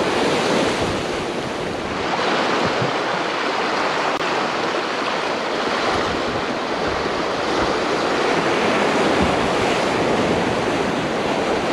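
Steady rush of ocean surf breaking along the shore, easing slightly for a moment then building again about two seconds in.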